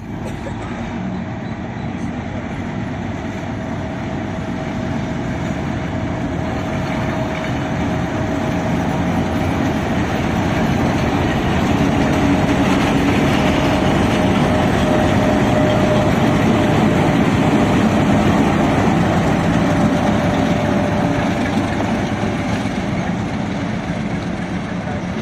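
Train running close by: a heavy, even rumble with a steady high whine. It grows louder over the first half and eases off slightly toward the end.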